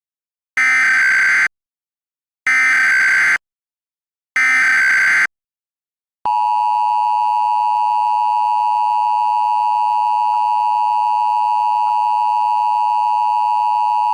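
Emergency Alert System alert tones: three identical short bursts of SAME header data tones, each about a second long with a pause between, then about six seconds in the loud, steady two-tone EAS attention signal begins and holds.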